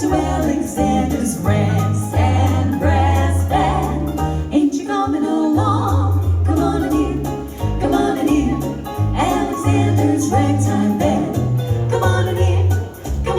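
Vintage 1940s-style close-harmony vocal group singing with band accompaniment, over a bass line that steps from note to note.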